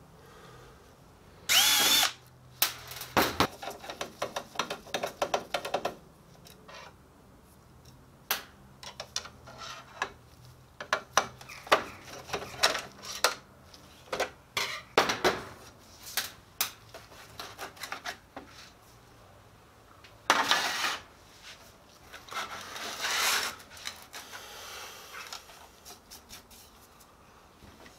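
A cordless drill-driver whirs in short runs, once about two seconds in and again a couple of times around twenty seconds in, driving the screws of a copier's touch-panel housing. Between the runs the plastic and sheet-metal parts of the panel click and knock as they are handled.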